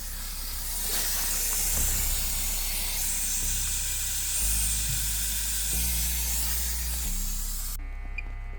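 A loud, steady hiss that cuts off abruptly near the end, over background music with a stepping bass line.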